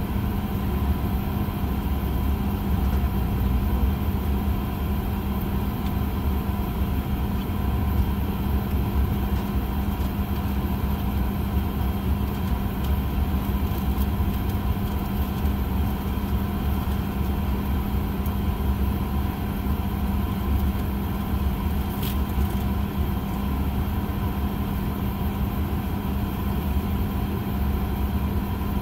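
Steady cabin drone of a parked Boeing 737-800: air-conditioning and onboard power hum, with a constant low note over a rumble. There is one faint click about three quarters of the way through.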